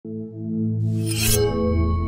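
Ambient intro music of sustained low held tones. About a second in, a brief rush of noise swells up and gives way to ringing higher notes.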